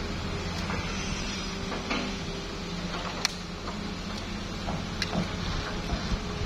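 Hitachi excavator's diesel engine running steadily as it swings a loaded bucket over a dump truck, with a few short sharp clicks.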